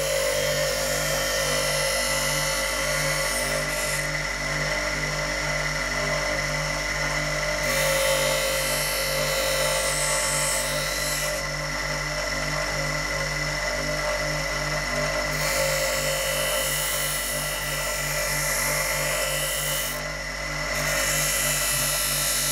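Bench grinder running steadily while the steel feet of fishing-rod guides are ground against its wheel to taper them. The high grinding hiss drops away and returns every few seconds over the motor's steady hum.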